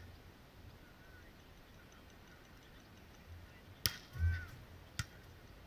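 Two sharp clicks about a second apart over a faint background, with a dull low thump and a short chirp-like sound between them.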